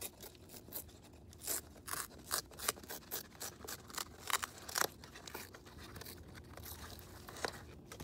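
A Moluccan cockatoo chewing and tearing at a cardboard box with its beak: irregular crunching, ripping clicks, thick for the first five seconds, then only a few near the end.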